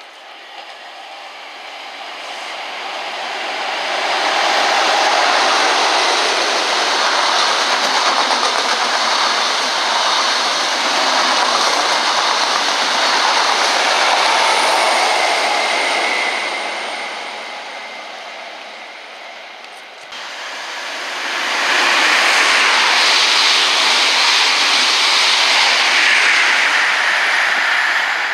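Trains passing through a station: a rushing noise from wheels on rail that builds, holds and fades over about twenty seconds, then a second loud pass that starts abruptly about twenty-one seconds in.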